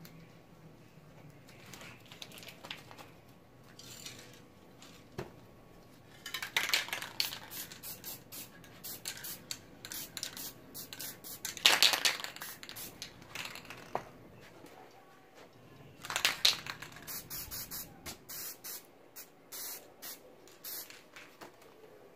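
Aerosol spray paint can hissing in a series of short bursts, with longer sprays about six, twelve and sixteen seconds in.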